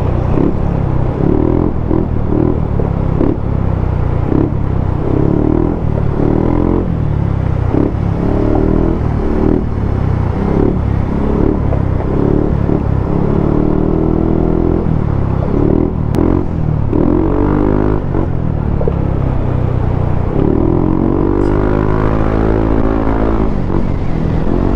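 Yamaha Aerox 155 scooter's single-cylinder engine running in stop-and-go traffic, its pitch rising and falling as it speeds up and slows, over a heavy low rumble.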